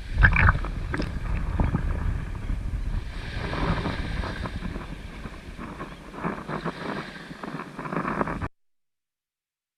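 Wind buffeting the microphone over the wash of water, with scattered knocks, cutting off abruptly to silence about a second before the end.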